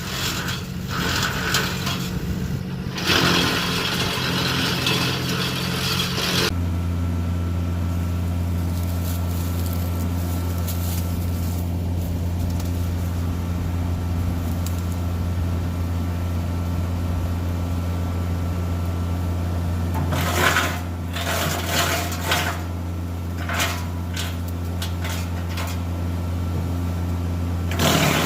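Titan tractor-PTO wood chipper running. For about the first six seconds it crackles and clatters as it chips wood. Then it spins empty over a steady tractor engine hum, and near the end it is fed again with intermittent snapping and crackling.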